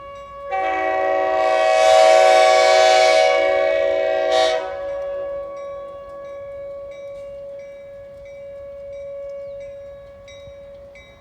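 A diesel locomotive's air horn blows one long blast starting about half a second in and cutting off about four and a half seconds in. Under it a tornado siren holds a steady tone throughout, and a railroad crossing bell dings at a regular beat.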